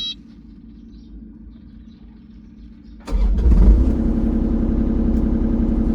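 Excavator diesel engine catching about three seconds in, revving briefly and then settling into a steady idle. The engine now starts and keeps running after its fuel filter was replaced and the fuel system primed, where before it had died after each start.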